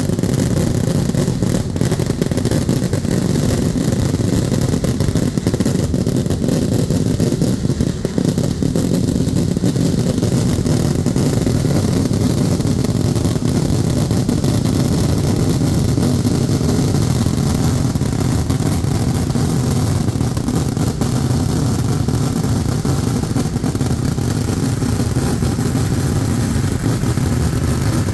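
Kerala vedikkettu fireworks: a dense, unbroken barrage of explosions merging into a continuous loud rumble, with countless sharp cracks on top.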